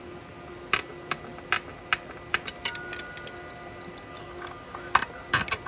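Irregular sharp metallic clicks and taps of a screwdriver working the base screws of the machine, over a faint steady hum.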